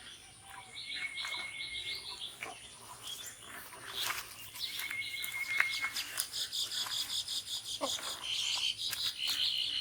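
Birds chirping and insects trilling, with two short high whistled notes and a fast pulsing trill that grows stronger about halfway through.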